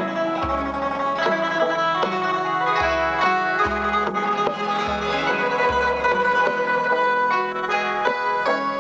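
Thai classical string ensemble playing: a hammered khim and a plucked zither sound bright, quick melodic lines, with deep low notes recurring under them.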